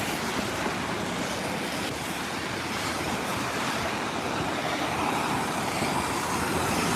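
Steady hiss of traffic on rain-wet streets, mixed with falling rain.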